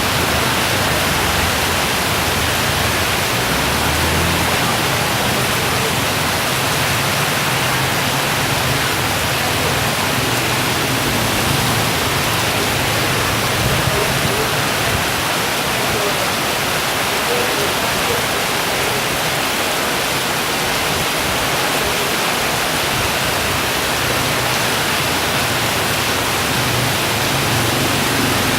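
Very heavy rain with wind, a loud, steady, dense hiss of a downpour without let-up.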